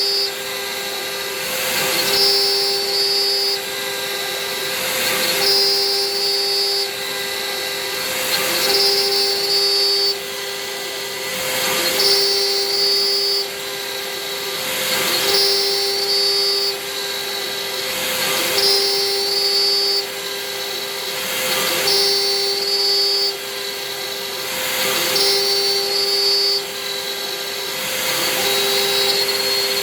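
Hobby CNC milling machine running a repeating motion: the stepper motors whine in moves of about a second and a half, about nine times at an even pace, with a short burst of noise between moves over a steady hum.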